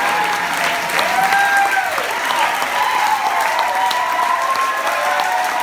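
Audience applauding steadily, with a few long rising-and-falling cheers over the clapping.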